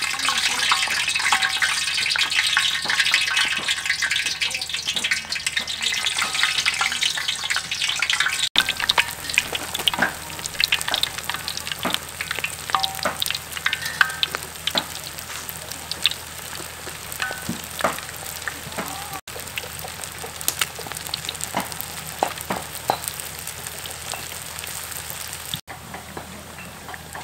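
Balls of rice deep-frying in hot oil in a metal wok: a steady sizzle full of crackles. It is thickest over the first eight seconds, then thins to scattered sharp pops.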